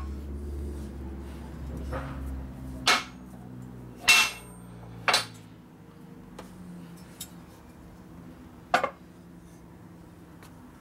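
Sharp metallic clinks and knocks as steel parts and tools are handled and set down on a workbench, a few single strikes several seconds apart. A low hum fades out about three seconds in.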